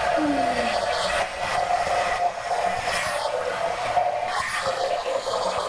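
Handheld hair dryer running steadily, a rush of blown air with a steady hum in it.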